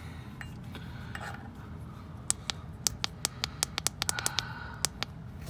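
About a dozen sharp, light clicks in a quick, irregular run, starting about two seconds in and stopping shortly before the end.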